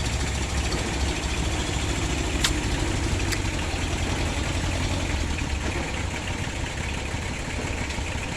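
Small single-cylinder diesel engine of a 'kobota' hauling cart idling steadily, with two short sharp clicks about two and a half and three and a half seconds in.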